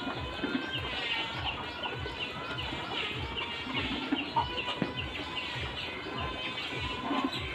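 A flock of laying hens clucking and calling, many birds at once, over a low regular thudding.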